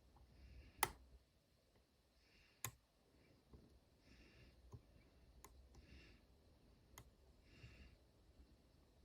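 Faint metallic clicks of a disc detainer pick working the rotating discs of an Abloy Classic lock: about six sharp, irregular clicks, the loudest about a second in, with softer faint sounds between them.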